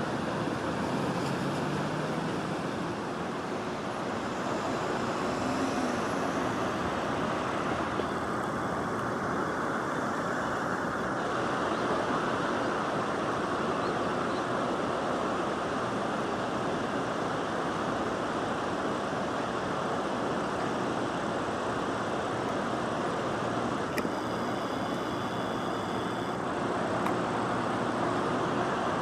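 Steady outdoor rushing background noise with no distinct events, with faint higher tones entering briefly twice.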